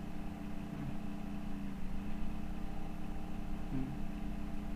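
A steady low hum made of several even, unchanging tones, with a faint hiss over it.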